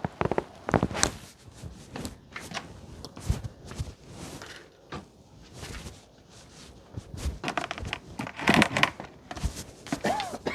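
Irregular metallic clicks, knocks and rustling of hands and tools handling an A/C line fitting as its nut is installed at the expansion valve.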